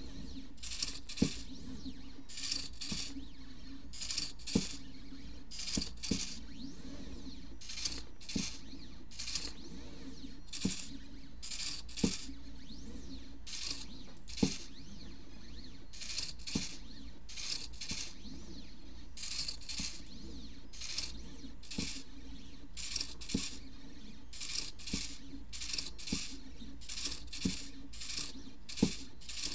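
midTbot ESP32 pen plotter at work: its stepper motors buzz in short bursts, often in pairs, about one or two a second, as the pen carriage makes short strokes. Occasional sharp clicks come through, and a steady low motor hum runs underneath.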